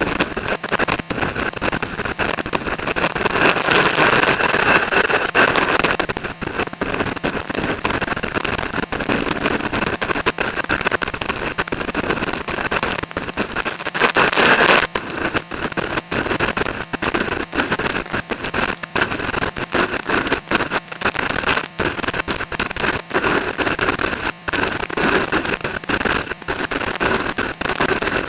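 Strong wind buffeting the microphone: a loud, ragged rush of noise that keeps cutting in and out, swelling in gusts a few seconds in and again about halfway.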